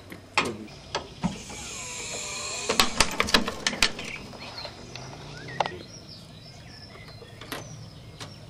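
Hydraulic floor jack being worked and let down under a car's wheel: sharp metal clicks and knocks from the jack and its handle, with a hiss lasting about two seconds in the middle as the jack lowers the tyre onto a CD-ROM drive.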